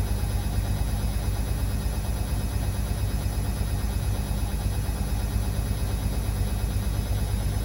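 Beko WA 1050 washing machine running: a steady low hum with a fast, even pulsing and a constant rushing noise, unchanged throughout.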